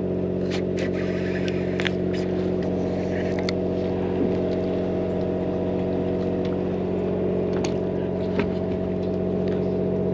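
Charter fishing boat's engine running steadily, with a few light clicks and knocks over it.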